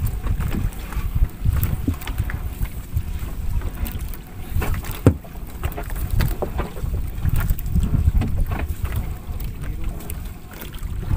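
Wind buffeting the microphone as an uneven low rumble, with scattered knocks and clicks from a fishing net being hauled by hand over the side of a wooden outrigger boat. The sharpest knock comes about five seconds in.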